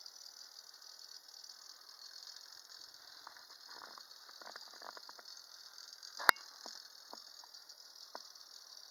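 Homemade wooden woodpecker toy working its way down a pole on a light wire spring, its beak tapping the pole in irregular clicks, with one loud knock about six seconds in.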